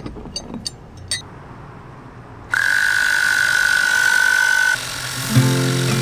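Compressed air hissing with a steady whistle as an air chuck on a coiled air hose pressurizes the ABS-pipe solar shower tank through its Schrader valve, starting suddenly about two and a half seconds in; before it, a few light clicks of handling. Near the end background music takes over.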